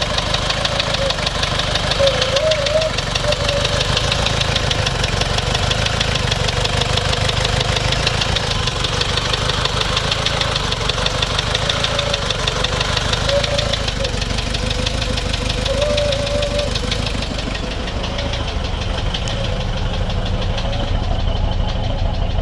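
Toyota 1KZ-TE four-cylinder turbo-diesel running with a steady, rapid knocking and misfiring on a cylinder. The owner suspects a blown head gasket, since the engine seems to be eating coolant.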